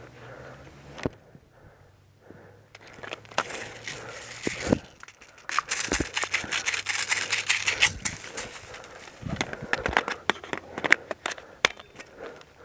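Crunching and crackling of someone moving through dry leaves and brush, with many sharp snaps and clicks, densest from about five and a half to eight seconds in.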